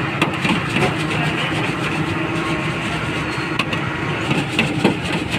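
Steady low hum and hiss of a street-food stall at a deep fryer, with a few sharp metallic clinks as the wire fry baskets are handled.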